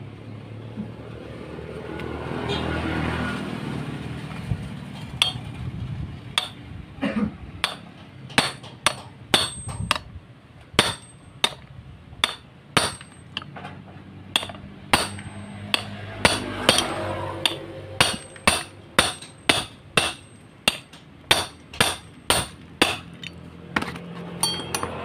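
A hammer strikes a steel drift set in the valve guide of an aluminium motorcycle cylinder head, driving the guide out. The sharp metallic blows, each with a short ring, start about five seconds in and settle to about two a second.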